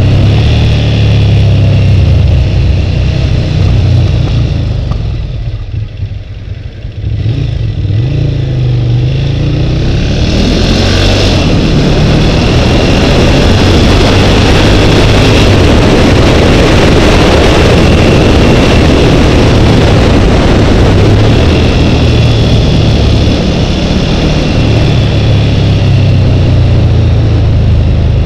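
Motorcycle engine heard through a helmet-mounted camera, mixed with wind rush on the microphone. About five seconds in the engine note eases off and grows quieter; it then climbs in pitch as the bike accelerates again. After that, steady loud wind noise and engine run together.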